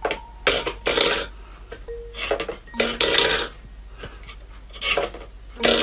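Steel cat food bowl pushed by a cat's paw, scraping and knocking on a wooden floor in a series of short noisy scrapes.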